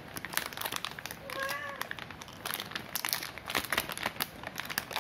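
Clear plastic packaging crinkling irregularly as the wrapped boost-converter circuit board is handled and turned over. A short high call, rising then falling, comes about a second and a half in.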